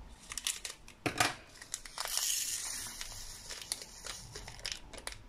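Small plastic bag of diamond-painting drills crinkling and rustling, with scattered light clicks, as the drills are emptied into a storage pot. A denser rustling hiss runs from about two seconds in for a little over a second.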